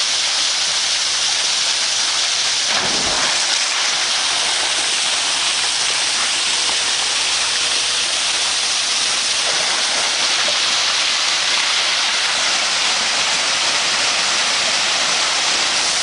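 Steady hiss of running, splashing water, as water pours down a pool waterslide, briefly louder about three seconds in.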